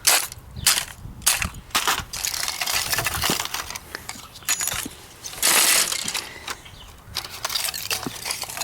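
A copper-wound part from a computer monitor being broken apart: irregular sharp cracks and snaps, with a longer crunching rasp a little past halfway.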